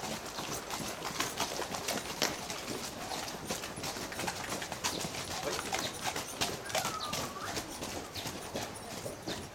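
Horses' hooves clip-clopping on a dirt arena floor as several ridden horses pass one after another.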